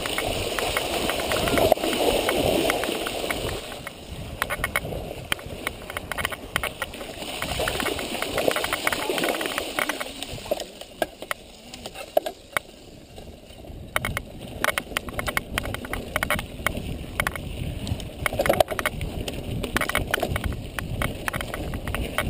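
Mountain bike ridden through a flooded, muddy track, its tyres splashing through water for the first few seconds. It then rolls over rough dirt with the bike rattling in many short clicks and knocks over the bumps.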